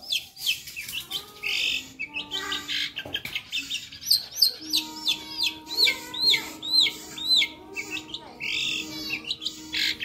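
Long-tailed shrike (cendet) singing a fast, varied song of chirps and mimicked calls from its fill-in repertoire, including a run of arched whistled notes about two a second in the second half.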